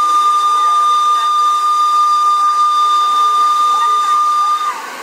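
Miniature live-steam locomotive's whistle blowing one long, steady, high-pitched blast that cuts off near the end, with crowd voices faint beneath.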